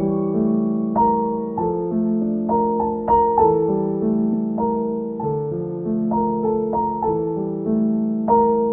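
Piano music: a slow melody of sustained notes, with a new note or chord struck every half second or so, each ringing on as the next begins.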